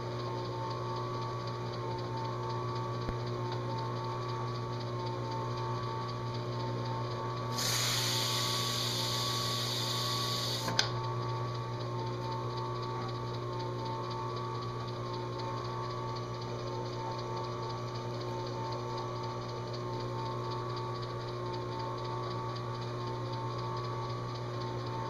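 Drill press motor running steadily with a low hum, spinning an abrasive pad used to engine-turn swirls into a metal dash panel. About eight seconds in, a louder hiss lasts about three seconds and stops with a sharp click.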